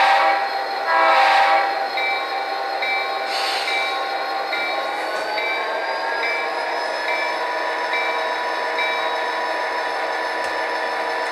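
Sound decoder of an HO-scale Athearn Genesis GP39-2 model locomotive playing its diesel engine sound as the model moves off at the first speed step: the engine note rises in pitch a few seconds in while a bell rings evenly about once a second. Two short louder bursts come in the first few seconds.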